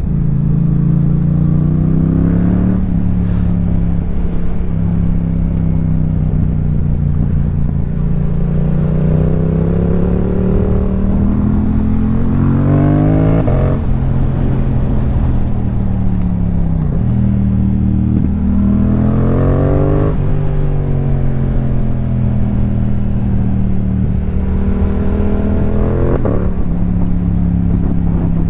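2022 Yamaha YZF-R7's 689 cc parallel-twin engine through a Yoshimura R77 carbon-fibre exhaust, heard from the riding motorcycle. The engine note climbs steadily under throttle and drops sharply about four times, easing and building again in between.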